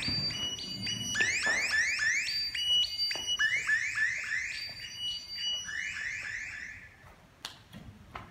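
Electronic alarm tone: rapid runs of short rising chirps that repeat over and over, fading out about seven seconds in. A couple of sharp knocks follow near the end.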